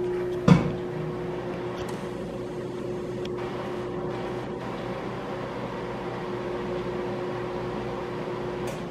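Microwave oven running with a steady hum, with one thump about half a second in. The tinfoil inside is not sparking.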